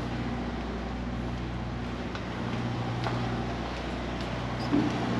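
Steady low machine hum, like a running air-conditioner or fan unit, with a few faint knocks.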